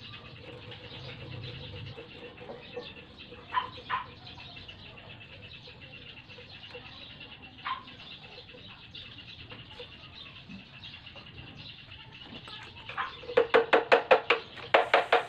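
A hand tool striking the steering-stem lock nut of a motorcycle in a fast run of sharp metallic taps, several a second, starting about 13 seconds in, as the nut is driven tight over the new knuckle bearings. Before that, only a few faint clinks of metal parts being handled.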